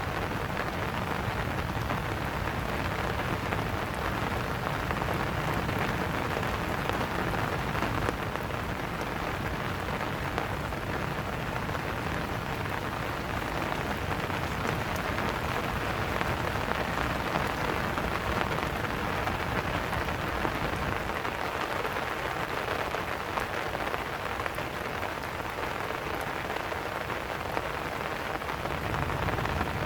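Steady rain falling, a dense even patter of drops on surfaces.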